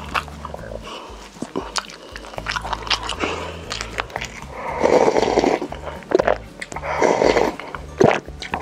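Close-miked eating: biting and chewing with many small crisp clicks, and louder noisy bursts about five and seven seconds in and a sharp one near the end.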